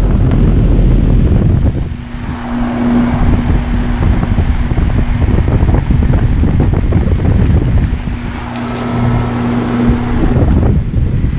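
Goodman GSH13 heat pump outdoor unit running with a steady hum, its low rumble coming in waves as air gusts buffet the microphone for much of the time.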